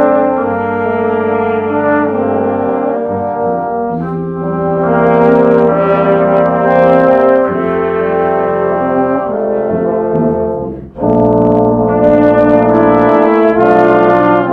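Brass ensemble playing sustained chords, with a brief break about eleven seconds in before the full ensemble comes back in.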